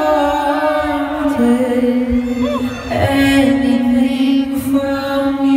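A cappella vocal group singing live into microphones: several voices hold long notes together as a chord that shifts about a second and a half in and again about three seconds in, with a lead voice moving above them.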